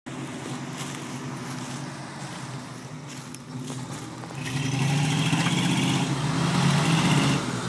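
Engines of a 1975 International Scout and a Jeep running under load during a tow-strap recovery from mud. A steady low engine note, then about four and a half seconds in the engines rev harder and louder for nearly three seconds before easing off.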